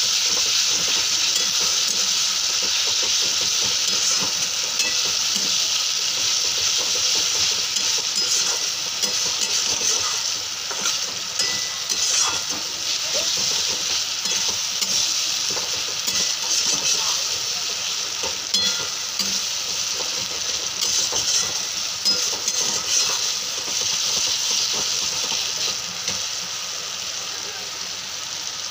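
Onion-tomato masala sizzling in hot oil in a frying pan while a steel spatula stirs it, with small scrapes and clicks of the spatula against the pan. The sizzle eases a little near the end.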